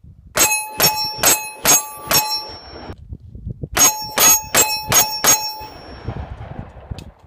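Gunshots hitting a 1/2-inch AR500 steel silhouette target in two quick strings of five, about 0.4 s apart. Each hit rings the steel plate with a clear bell-like tone that hangs on briefly after each string.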